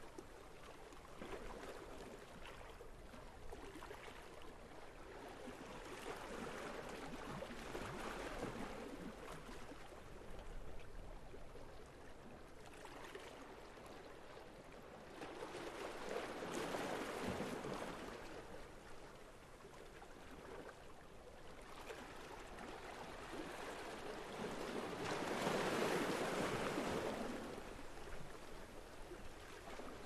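Small sea waves lapping and washing against the waterfront, the wash swelling and easing about every nine seconds, the biggest surge near the end.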